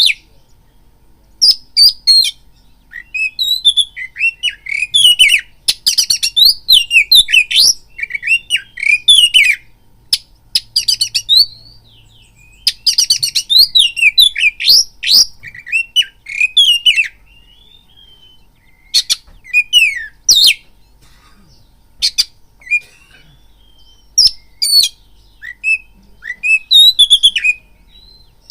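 Oriental magpie-robin singing: bursts of fast, varied high whistles and trills with sharp clicking notes, broken by pauses of a second or two.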